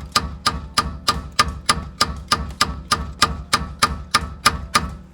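Hammer striking a rusted, seized bolt in steady blows, about three a second, each with a short metallic ring, to break the bolt's head off. The blows stop near the end.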